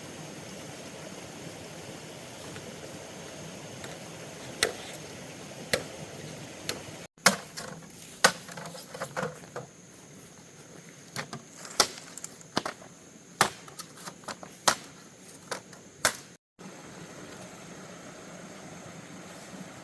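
Irregular, sharp, loud knocks of a blade chopping bamboo, a dozen or more spread over about ten seconds, over a steady background hiss.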